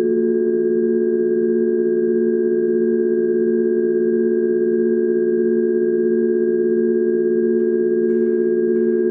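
Sustained electronic drone of several steady pure tones, low and middle pitches held together without change, with a faint pulsing underneath about twice a second, played through a pair of floor-standing box loudspeakers. A few faint clicks and rustles come in near the end.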